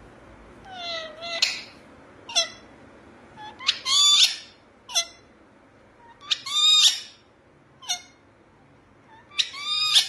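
Rose-ringed parakeets calling: about nine short squawks with bending pitch, three of them longer and louder.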